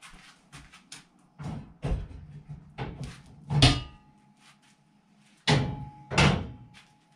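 Knocks and clatter of things being handled and set down on a steel shelving rack: a string of bumps, the loudest about halfway and twice near the end, with a faint ring lingering after them.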